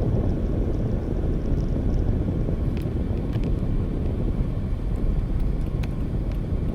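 Car cabin road noise while driving: a steady low rumble of engine and tyres, with a few faint clicks.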